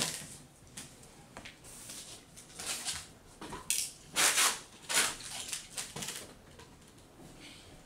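Plastic laptop parts being handled and fitted together: a run of irregular scrapes and clicks, the loudest a few seconds in.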